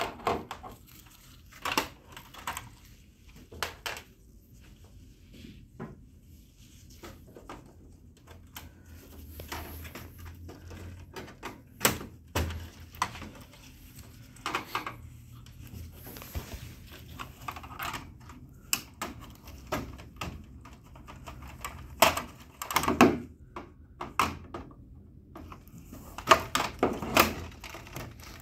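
Irregular plastic clicks, snaps and knocks from a laser printer's covers as the side cover is worked loose by hand and with a flathead screwdriver, its clips tight on a new machine. The louder knocks come about twelve seconds in, a few seconds past the twenty-second mark, and near the end.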